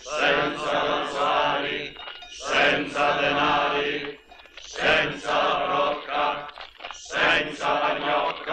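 A group of voices chanting together in four phrases, each about two seconds long, with short pauses between them, like a processional litany.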